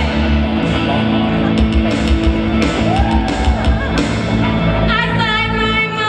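Live wizard-rock band playing loud, with electric guitar and a woman singing and shouting into a microphone. The sound rings in a large hall. About five seconds in, a held note rings out steadily.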